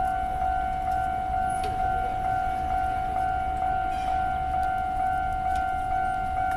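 Japanese railway level crossing warning bell ringing: a steady electronic tone pulsing about twice a second, over a low rumble.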